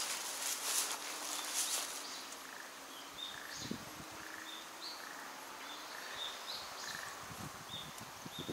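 Dry grass rustling underfoot for the first couple of seconds, then a small bird chirping over and over in short high calls.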